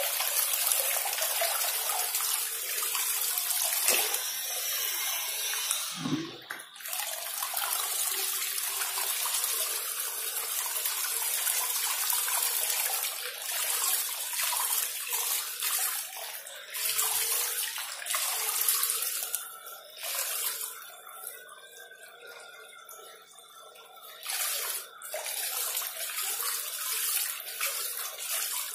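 Water sprayed from a homemade fountain head, built on a 775 motor and PVC pipe, fanning out in a sheet and splashing steadily down onto a pond's surface. It turns quieter for a few seconds about two-thirds of the way through.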